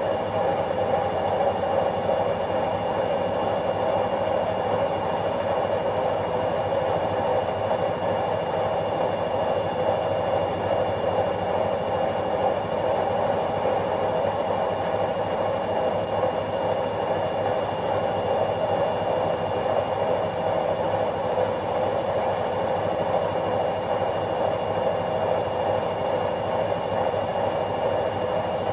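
Washing machine running with a steady, even whir, plus a faint high whine over it.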